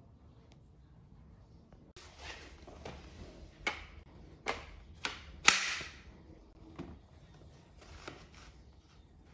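Hard plastic parts of a Dyson cordless stick vacuum being handled and snapped together. After about two seconds of quiet, a series of sharp clicks and knocks sets in, with rustling handling between them; the loudest snap comes about halfway through. The vacuum is not running.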